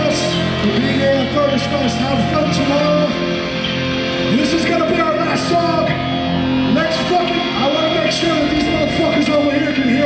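Live metalcore band playing loud on stage, heard from within the crowd: held distorted guitar chords with irregular cymbal crashes, and voices singing and shouting over it.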